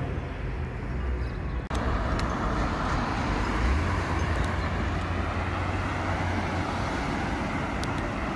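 Sports car engine running as the car drives past and around a bend, with road and traffic noise; the sound cuts in abruptly about two seconds in and is loudest around four seconds in.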